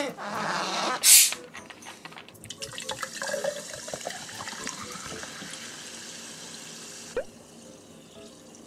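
Sparkling water poured from a plastic bottle into a glass, splashing and fizzing, with the pour stopping abruptly about seven seconds in and faint fizzing after it. A short, loud hiss about a second in, as of the carbonated bottle being opened.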